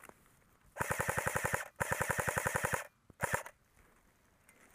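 An airsoft electric rifle firing three full-auto bursts: two of about a second each, then a short one, each a fast rattle of about a dozen shots a second.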